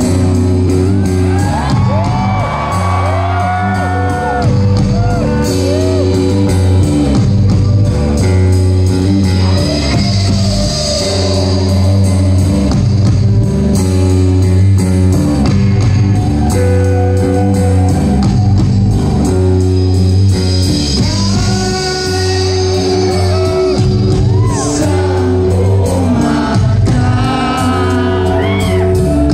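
Live rock band playing: electric guitars, bass and drums, with a voice singing at times and shouts from the crowd, heard from within the audience.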